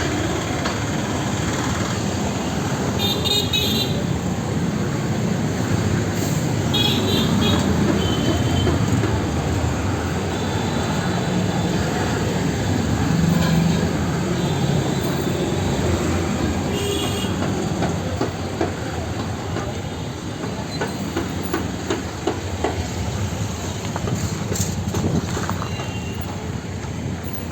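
Continuous low rumble of passing heavy vehicles, swelling about thirteen seconds in and easing off after, with a few short high-pitched pulsing beeps a few seconds in and again around seven and seventeen seconds.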